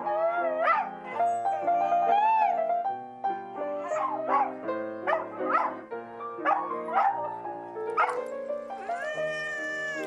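A dog howling along to a piano: piano chords with the dog's rising, wavering howls and short yelps over them, ending in one long held howl near the end.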